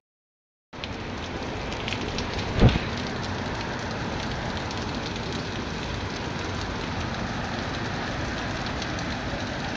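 Heavy monsoon rain falling steadily on a flooded courtyard and its standing water, starting suddenly just under a second in. A single short knock sounds about two and a half seconds in.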